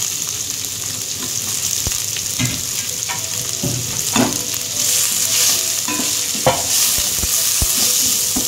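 Chopped onions sizzling in hot oil with ginger, garlic and green chillies in a stainless steel pan, freshly added for sautéing. A wooden spatula stirs them, scraping and knocking against the pan several times.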